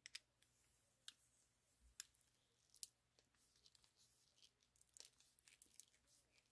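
Faint, irregular small metal clicks and scrapes of a screwdriver turning out the two screws on the bottom of a mini air compressor's piston. The sharpest click comes about five seconds in.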